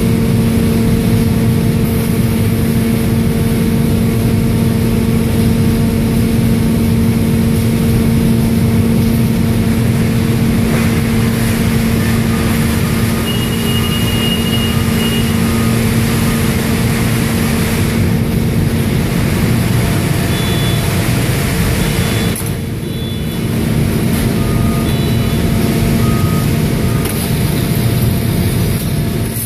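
Automatic pallet conveyor and strapping line running: a steady electric hum over a loud low rumble, with a few faint short high beeps in the second half.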